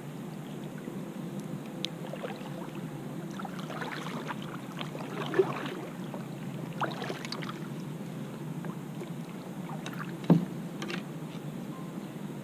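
Kayak paddle strokes on calm lake water: the blade dipping, splashing and dripping in an uneven rhythm, with two sharp knocks about five and ten seconds in.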